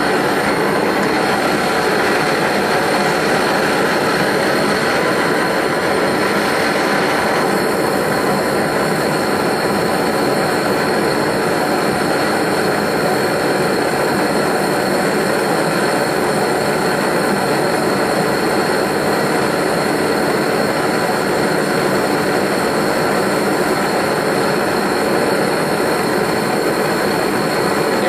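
Bernz-O-Matic JT539T swirl-flame propane torch burning into a small melting furnace, a loud, steady rushing noise with no breaks, while it heats a crucible of silver to melting.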